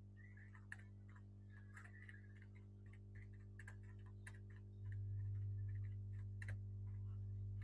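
Computer keyboard keys clicking at an irregular typing pace, over a steady low hum that grows louder about five seconds in.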